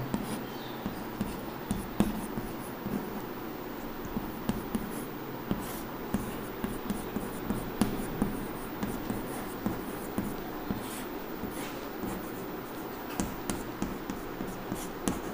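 Chalk writing on a chalkboard: a run of short, irregular taps and scratchy strokes as words are written out by hand.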